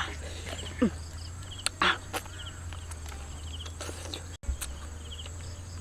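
Insects chirping in short pulsed trills repeating about every second and a half, over a low steady hum, with a few brief close noises about one and two seconds in.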